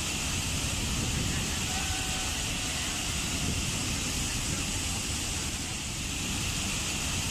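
Waterfall: a steady rush of falling water with a deep low rumble underneath.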